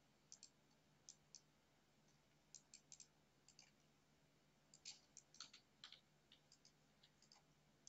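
Quiet computer mouse clicks, scattered singly and in quick pairs or short runs.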